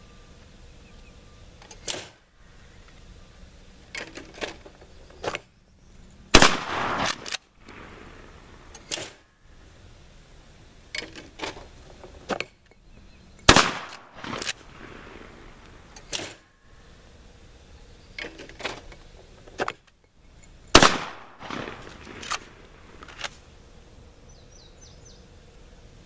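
Three shots from a 12-gauge Benelli Nova pump-action shotgun, roughly seven seconds apart, each with a short echo. Softer clacks and knocks fall between the shots.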